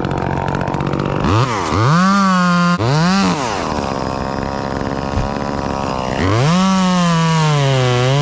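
Two-stroke chainsaw idling, then run up to full throttle about a second in and again past the middle. On the second run the pitch sags and recovers as the chain works through wood.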